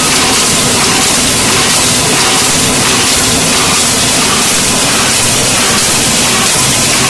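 A fully automatic 5-litre paint can body making line running at speed, its welder and can transfer machinery making a loud, steady mechanical noise with a faint hum underneath.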